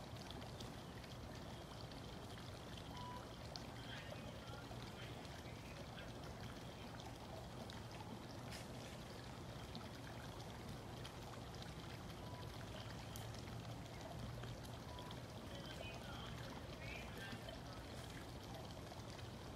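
Faint, steady rushing background noise with a low hum and a few faint high chirps.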